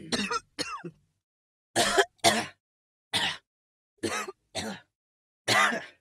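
Human coughs and throat-clearing in short separate bursts, about seven in all, some in quick pairs, with silent gaps between.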